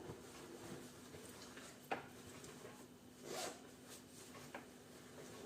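Faint rummaging through a child's bag: a sharp click about two seconds in and a short rustle a little past the middle, over a steady faint hum.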